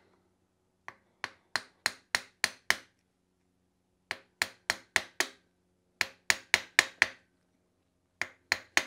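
A small hammer tapping the end of a pick to drive it in and free a part wedged in a Porsche 356 transaxle: four runs of quick sharp taps, about three a second, with short pauses between runs.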